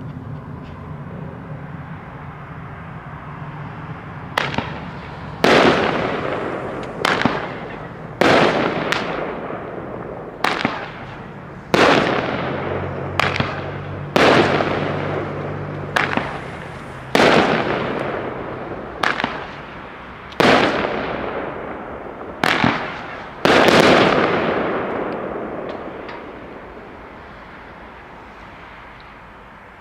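Nine-shot 200-gram firework cake (Great Grizzly 'Over the Moon') firing its shots one after another, starting about four seconds in: each shot a launch thump followed by the loud bang of the shell bursting overhead, with an echo trailing off, one every one and a half to three seconds. The echo of the last burst fades out near the end.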